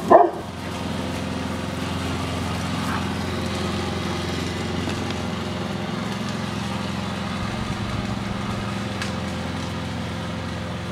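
A small engine runs at a steady, even drone. A dog barks once at the very start.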